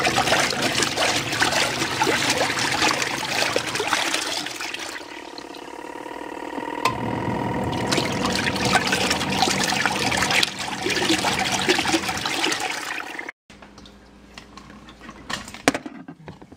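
Auauna portable twin-tub washing machine's wash tub churning a load of clothes: water sloshing over a steady motor hum, easing off for a couple of seconds midway. The wash then cuts off abruptly about 13 seconds in, leaving a few faint clicks.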